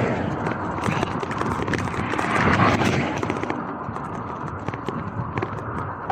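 Riding noise from a gravel bike on a wet road: a rushing noise that swells twice, with many scattered sharp clicks and ticks.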